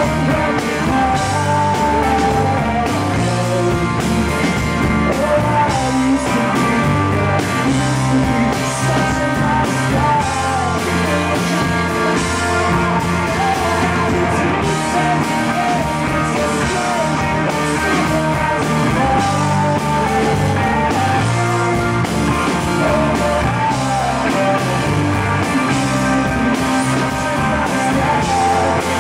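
Live rock band playing a song: a man sings over electric guitar and drums.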